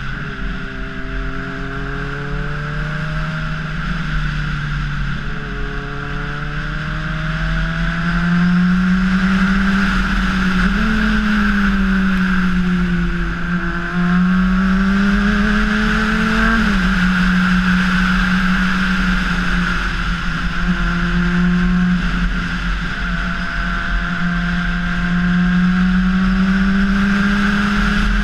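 Honda CBR600RR's inline-four engine running under way, its note slowly climbing and easing with the throttle and jumping in pitch a few times.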